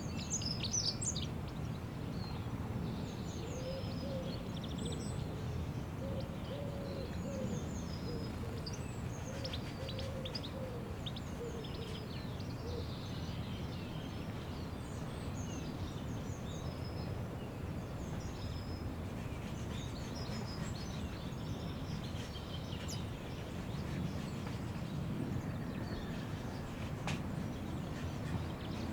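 Outdoor ambience: a steady low rumble with small birds chirping throughout, and a run of low cooing calls in the first half.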